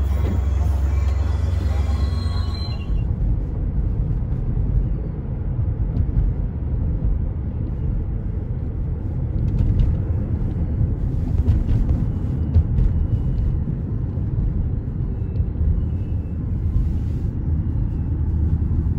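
A Metra bilevel commuter train rolls past a station platform. About three seconds in, this cuts abruptly to the steady low rumble of road noise inside a moving car.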